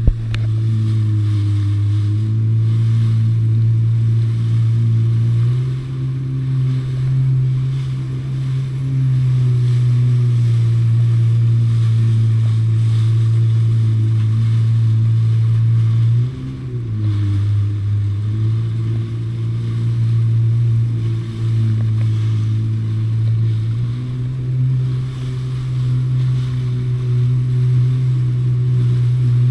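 Jet ski engine running at cruising speed, its note stepping up and down a little with the throttle and dipping briefly about halfway through before picking up again, over the hiss of spray and wind.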